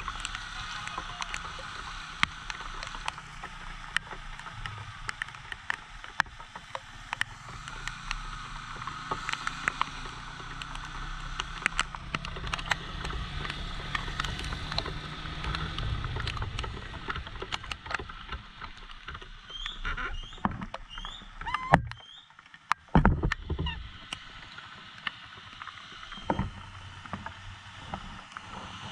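Rain pattering and tapping on the microphone over the low running of a motorcycle engine and the swish of wet road, with many small sharp drop hits throughout. The engine hum fades out about halfway through, and a few louder knocks come near the end.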